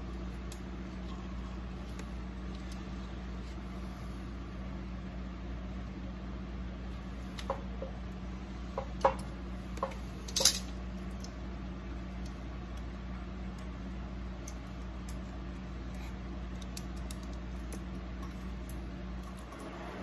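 Light metallic clicks and clinks from hand tools and small parts at a truck's front wheel hub, a handful of them around the middle, over a steady low background hum.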